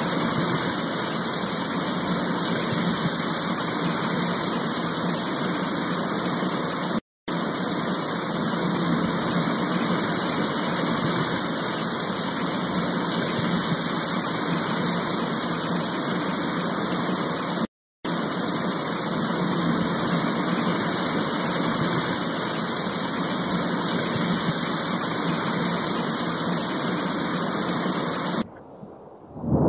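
Steady rushing noise of heavy rain and running floodwater, broken by two brief dropouts about seven and eighteen seconds in, and falling away just before the end.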